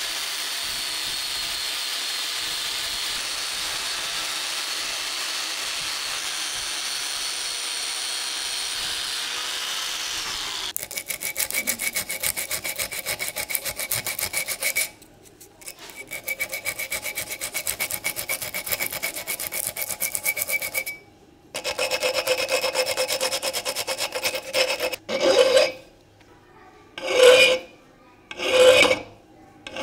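Rotary tool with a sanding disc running steadily against a steel pistol part, followed by long stretches of fast, rough rasping broken by two short pauses. Near the end, slow hand-file strokes on the steel hammer held in a vise, about one every second and a half.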